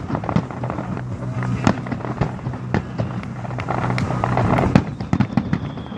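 Aerial fireworks bursting overhead: irregular bangs and crackles, with a sharp, louder bang near the five-second mark.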